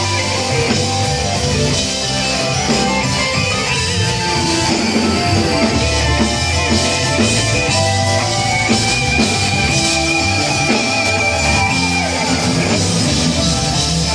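Live church band playing: electric guitar, bass guitar, keyboard and drum kit together, with a beat throughout and a high note held for a few seconds in the middle.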